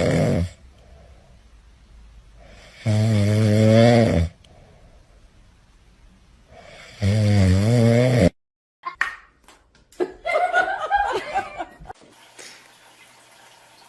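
Loud snoring: three long snores about three and a half seconds apart, followed by a few seconds of short, scattered softer sounds.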